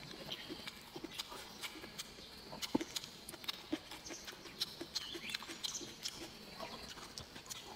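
Close-up chewing: soft, irregular wet mouth clicks and smacks as food is chewed.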